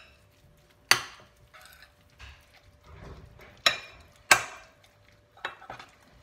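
Metal spoon stirring a wet, chunky mix of salt cod, egg and herbs in a glass bowl, with sharp clinks as the spoon strikes the glass: one about a second in, two close together near four seconds (the loudest), and a lighter one near the end.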